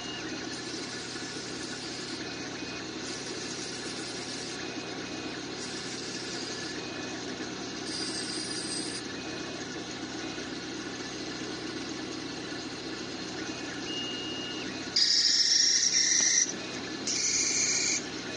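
Homemade CNC lathe running with a steady hum, broken by brief high tones and patches of hiss. Near the end come two loud, harsh high-pitched bursts, each about a second long.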